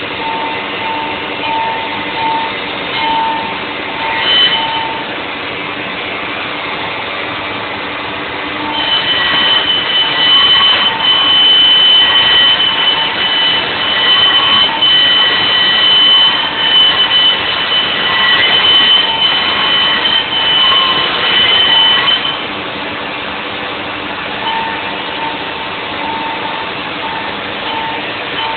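CNC router milling the cavities of a Stratocaster guitar body. The spindle runs steadily throughout. From about nine seconds in until about twenty-two seconds in it grows louder, with a high steady whine as it cuts.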